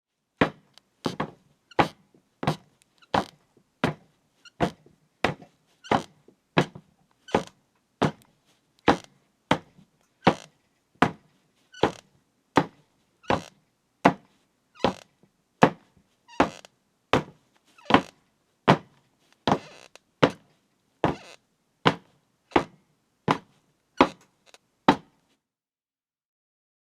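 Footsteps at a steady walking pace, about three steps every two seconds, each a sharp knock. They stop near the end.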